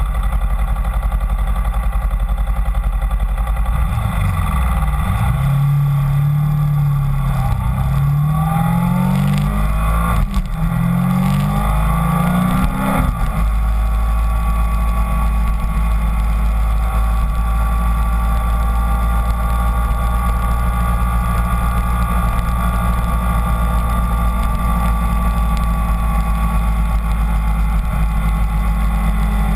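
Kawasaki Ninja 250's parallel-twin engine accelerating through the gears, its pitch rising and dropping back with each of several upshifts between about four and thirteen seconds in, then holding steady at cruising speed, over a constant low rumble.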